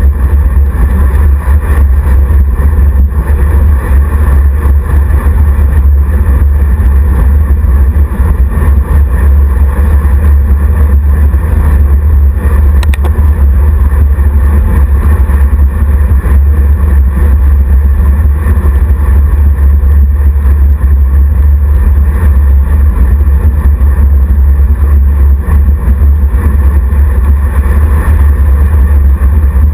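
Wind buffeting the microphone of a handlebar-mounted camera on a road bike moving at speed: a loud, steady low rumble that covers everything else.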